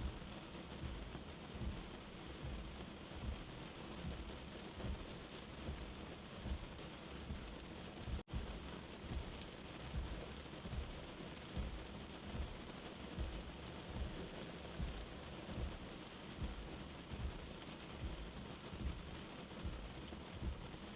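Steady rain falling, with repeated low thuds under the hiss. The sound cuts out for an instant about eight seconds in.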